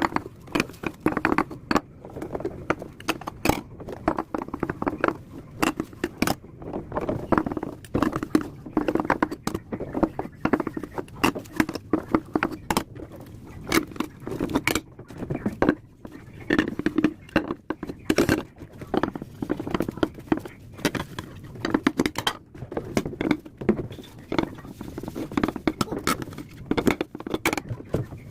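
Dishes being washed by hand: irregular clinks and clatter of dishes and utensils knocking together, over the sound of water.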